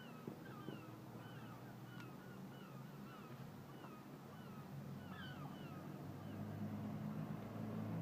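Gulls calling faintly, a run of short, repeated curved cries about every half second. From about three-quarters of the way in, a low steady engine hum rises underneath.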